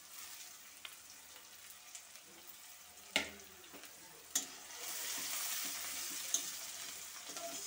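Sliced onions and whole spices frying in oil in a metal kadai, with a faint sizzle. There are two sharp knocks about three and four seconds in. After that the sizzle grows louder as a spatula stirs the onions.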